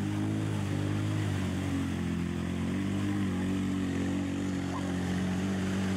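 ATV (quad) engine running under load as it tows a sled of riders through deep mud, holding a fairly steady speed with small rises and dips in pitch.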